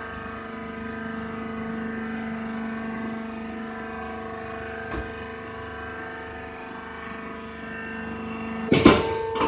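Hydraulic wood shavings bagging baler running, its motor and pump giving a steady hum with fixed tones. A loud clatter breaks in near the end.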